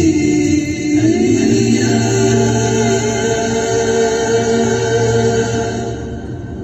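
An Arabic nasheed sung a cappella by a choir, holding long notes that fade out about six seconds in.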